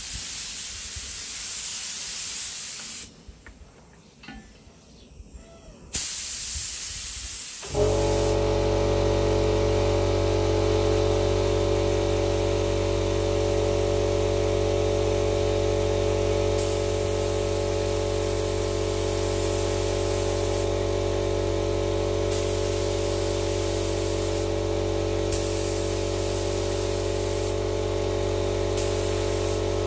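Gravity-feed air spray gun hissing as it sprays clear coat, starting and stopping in bursts as the trigger is pulled and released. About eight seconds in, the air compressor kicks in and runs with a steady hum underneath the spraying.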